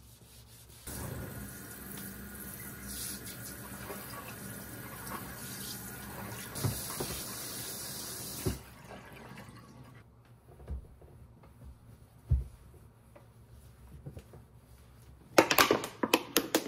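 Washbasin tap running water into the sink bowl for about seven seconds, then shut off. A few soft knocks follow, and near the end a plastic water bottle crackles and clicks as it is handled.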